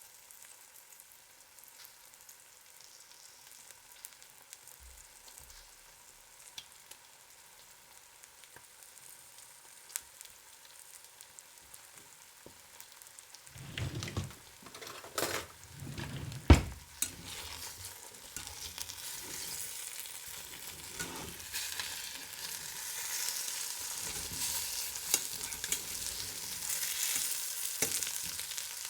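Eggs frying in a pan, starting as a faint crackling sizzle with scattered pops. About halfway through comes a cluster of sharp knocks, the loudest a single thud. After that the sizzle grows louder and denser and stays steady.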